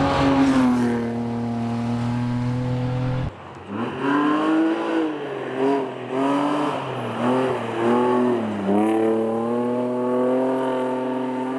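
BMW 3 Series rally cars driving a gravel special stage in succession. First an engine is held at fairly steady revs, then it breaks off abruptly. Next an engine's revs rise and drop several times through a corner, and near the end a note climbs slowly.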